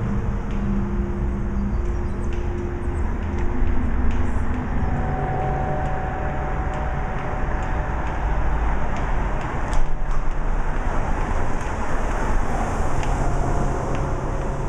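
A car engine running at low speed, with a steady low rumble that echoes off the concrete of a covered car park. There is a sharp click about ten seconds in.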